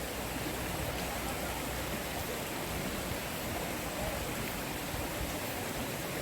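Mountain stream water flowing over rocks: a steady, even rushing.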